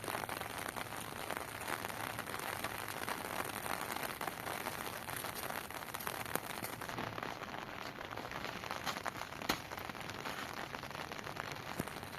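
Heavy rain falling steadily, with a few sharp ticks standing out, the loudest about nine and a half seconds in.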